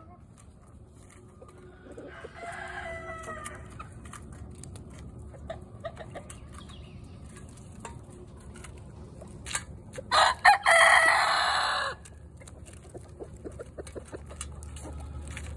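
Chickens clucking and pecking at crawfish in a metal pan, with short beak taps throughout. A rooster crows loudly for about two seconds near the middle, and a shorter call comes about two seconds in.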